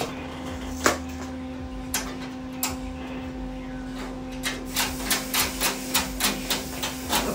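Sharp clicks and light knocks of snack packets being loaded into a vending machine's trays, a few scattered at first, then a quick run of about four a second over the last few seconds. A steady hum runs underneath.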